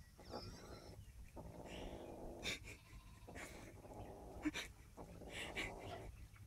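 A cat growling low over its food in stretches of about a second, each broken by a short breath, with a few short clicks from eating at the bowl.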